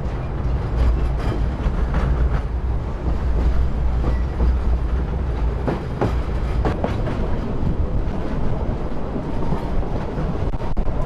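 Šargan 8 narrow-gauge heritage train running, heard from an open carriage window: a steady heavy rumble from the wheels and carriages, with irregular sharp clacks and knocks every second or so.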